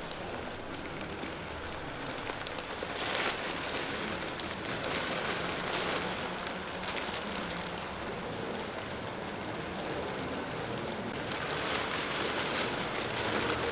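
Loose dark granular material poured from a plastic bag onto a concrete floor: a fine pattering, rain-like hiss that swells with each pour, loudest about three seconds in, again around six seconds, and near the end.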